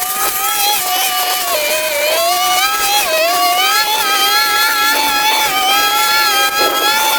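A small electric motor runs with a steady whine, its pitch sagging and recovering as the load changes, dipping most deeply about three seconds in.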